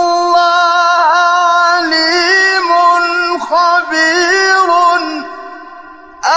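A male Quran reciter chanting in a slow, melodic style: one voice holds long, drawn-out notes that glide up and down. The phrase fades out about five seconds in, and a new one starts just before the end.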